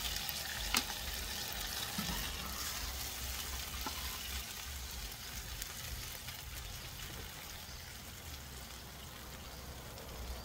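Chips deep-frying in a pan of hot oil: a steady sizzle with fine crackles that fades slightly toward the end, and one sharp click about a second in.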